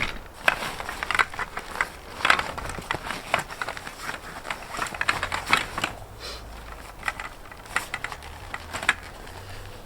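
Irregular clicks, taps and rustles of bivvy parts and their bags being handled and unpacked, with a few sharper knocks among them.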